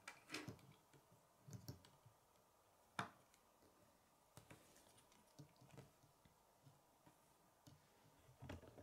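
Plastic K'nex rods and connectors clicking as the assembled frame is handled and turned. The clicks are sparse and light, with one sharper click about three seconds in.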